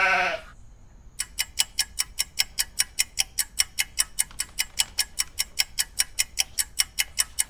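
A quick, even run of sharp ticks, about five a second, starting about a second in and stopping just before the end. At the very start a man's voice trails off on a drawn-out word.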